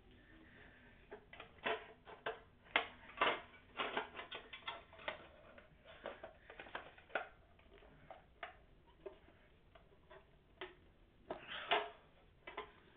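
Two nested frying pans clicking and clacking against each other as they are rolled one inside the other by hand: irregular taps and scrapes, thickest in the first few seconds and again in a short flurry near the end.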